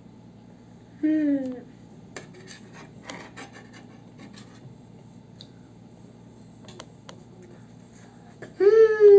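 A spoon clicking and scraping on a plate as food is scooped, between a child's short vocal sound falling in pitch about a second in and, near the end, a loud, drawn-out vocal sound from the child that dips and then rises in pitch, the loudest sound here.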